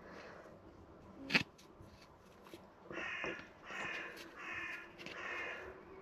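A crow cawing four times in steady succession, each call about half a second long. A single sharp knock comes about a second before the calls.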